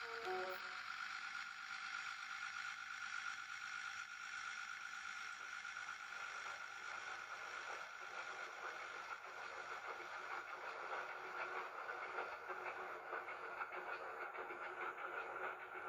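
Metropolitan-Vickers Type 2 (Class 28) diesel-electric locomotive running steadily, with a constant high-pitched tone over the engine noise. A brief falling tone sounds right at the start.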